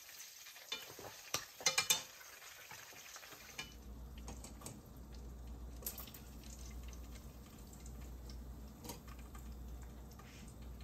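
Kitchen utensils clinking against dishes, with a quick cluster of sharp clinks about two seconds in. A steady low hum sets in partway through, with occasional light clicks over it.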